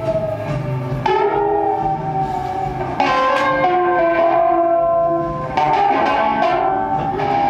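Electric guitar playing slow, held notes and chords that ring on and change every second or two.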